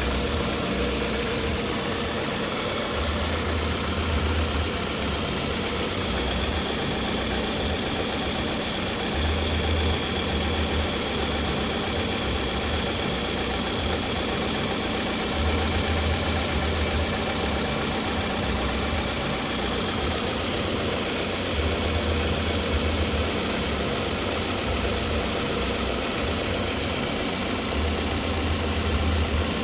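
Toyota Camry engine idling with a cylinder 1 misfire (trouble code P0301). The running is steady, with a low rumble that swells and fades about every six seconds.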